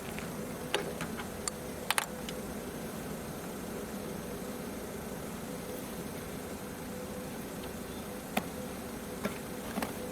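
Plastic clicks and knocks from a car's engine-bay hose and pollen-filter cover being unclipped by hand: a cluster in the first two seconds, the loudest a sharp double click, then a few more near the end, over a steady low hum.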